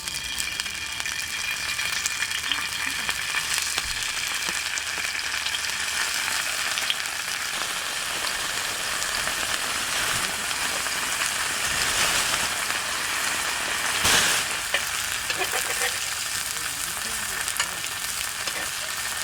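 Frozen jeon (Korean savoury pancakes) frying in oil in a pan, with a steady sizzle. There is a brief louder burst about two-thirds of the way through.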